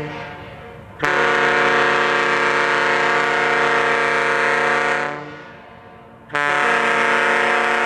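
Large multi-note air horn blowing a chord in long blasts: one of about four seconds starting about a second in, and another starting near the end.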